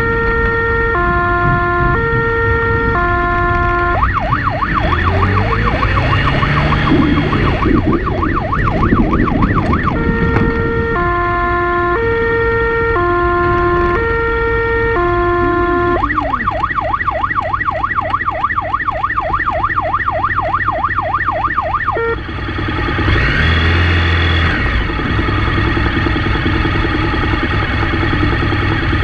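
Police motorcycle siren switching between a two-tone hi-lo pattern, changing about once a second, and a fast warble of about five pulses a second, over the motorcycle's engine revving up and down on a rough dirt track. The siren cuts off about three-quarters of the way through, leaving the engine running.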